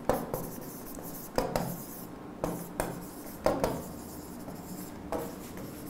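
Pen writing on a board: a handful of short scratchy strokes with pauses between, as a few words are handwritten.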